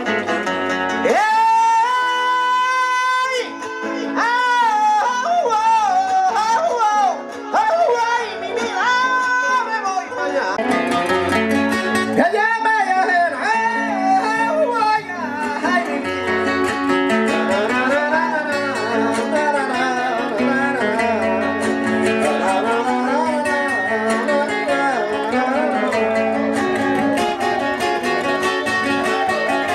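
Panamanian folk music: a high woman's voice slides up into a long held note, then sings wavering, ornamented lines over strummed and plucked guitar-like strings. After about 15 seconds the voice fades back and the accompaniment carries on.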